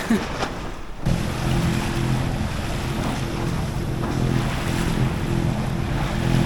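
A boat's engine running steadily amid wind and wave noise, starting abruptly at a cut about a second in.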